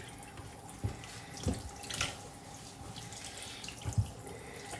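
Kitchen tap running steadily into a sink while a whole raw fish is cleaned under it with a knife. A few soft thuds come as the knife and fish are handled against the tray.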